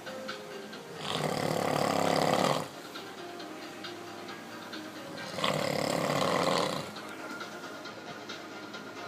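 A man snoring loudly, two long snores about four seconds apart with quieter breathing between.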